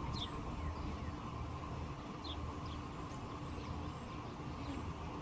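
A few short, high bird chirps, each sliding quickly down in pitch: one just after the start, then three more about two seconds in. Under them runs a steady low rumble and hum.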